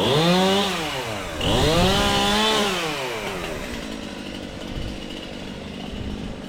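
Gas chainsaw revving up and dropping back twice, then settling to a steady idle about three seconds in.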